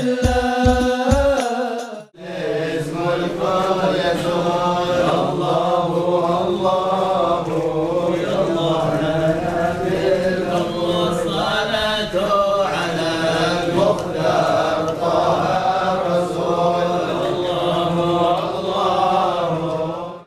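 Islamic devotional chanting by many men's voices together, steady and without drums. For the first two seconds it is a single sung line over regular drum beats, which cuts off abruptly.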